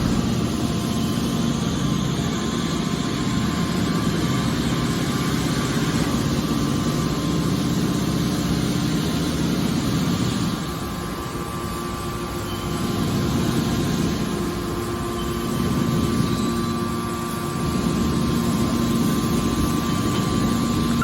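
Hydraulic metal baler running: a steady machine drone from its motor and pump, with a few held tones. It dips slightly in loudness about halfway through.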